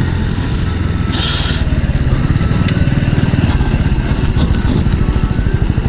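Motorcycle engine running at low speed, its exhaust pulses turning into a slower, more distinct even beat as the bike slows toward idle. There is a brief hiss about a second in.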